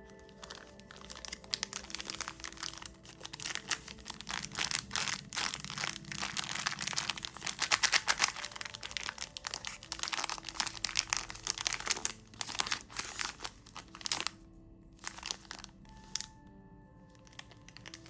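Candy wrapper crinkling as a lollipop is unwrapped: a dense run of sharp crackles for about fourteen seconds, then a few scattered crinkles near the end.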